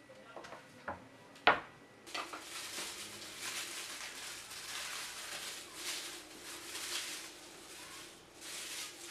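Plastic bag rustling and crinkling as onions are pulled out of it by hand, preceded by a few light clicks and one sharp tap about a second and a half in.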